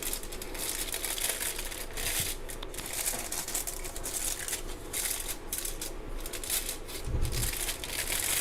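Crinkling and rustling handling noise, with a brief dull low thump about seven seconds in.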